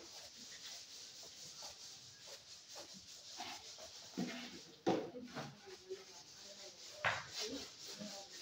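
Chalk being wiped off a blackboard: a run of uneven rubbing strokes, with a couple of louder swipes about five and seven seconds in.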